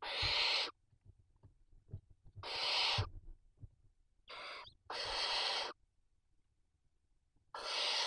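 Barn owl owlets giving harsh, breathy hissing calls, typical of food begging. There are five bursts of under a second each, a couple of seconds apart, with faint scuffling thumps of the birds moving on the nest floor between them.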